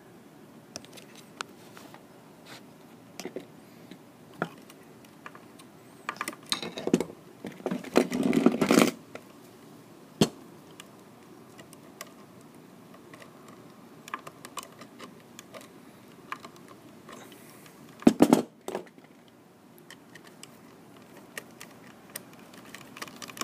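Small clicks and rattles of hand work on a light switch as the copper ground wire is hooked onto its ground terminal. A louder stretch of handling noise comes about a third of the way in, and a short sharp cluster of clicks about three quarters through.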